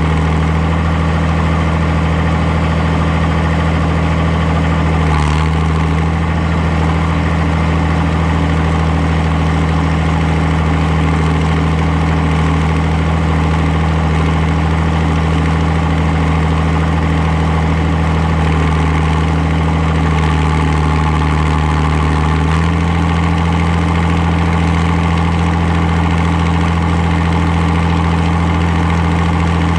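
Farmall 560 diesel tractor engine running steadily under load while pulling a disk. The note wavers briefly about five seconds in and shifts slightly near the 23-second mark.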